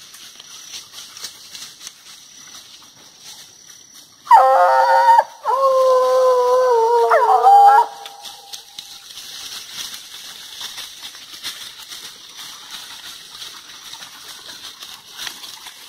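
Scent hound baying close by: two long howling bays back to back, about four seconds in, the second sagging slightly in pitch and bending up at its end.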